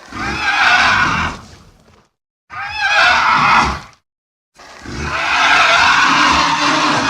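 Made-up monster cries for the Gremloblin: three separate animal-like calls cut apart by dead silence, the middle one wavering in pitch and the last one the longest.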